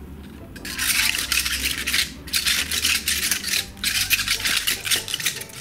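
A tied bundle of fresh white asparagus spears rubbed together between the hands, squeaking and creaking in three rubbing bouts. This squeak, which the speaker calls the spears singing, is the sign that the asparagus is fresh.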